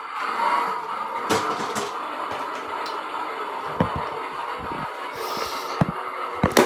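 Toy RC monster truck's electric motor and gears whirring steadily, with a few short knocks.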